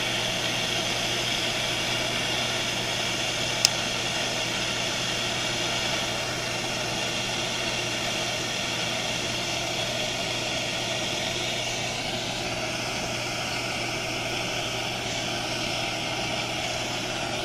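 Handheld gas torch burning with a steady hiss, its flame on a copper pipe joint as solder is melted into it. A single sharp click about three and a half seconds in.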